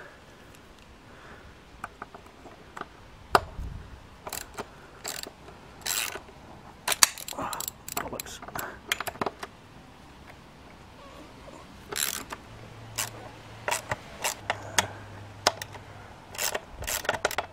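Socket ratchet wrench clicking in short, irregular bursts as bolts on a motorcycle's tail section are worked loose, with occasional metal clinks of the tool.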